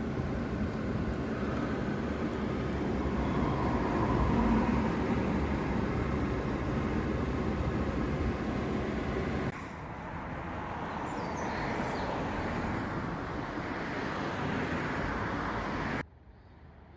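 Car running and driving, a steady engine and road-noise rumble. It changes abruptly about nine and a half seconds in, then cuts off near the end to a much quieter background.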